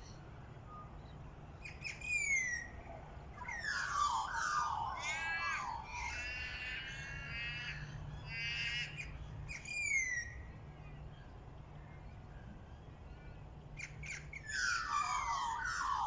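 Birds calling: a short falling whistled call about two seconds in, then a run of harsh calls with rapidly repeated notes for several seconds. Another falling whistle comes near ten seconds, and a fresh burst of calls near the end.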